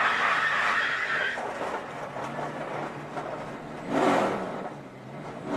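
NASCAR stock cars running at race speed, their engine noise fading down after about a second, then a sudden loud swell about four seconds in that dies away quickly.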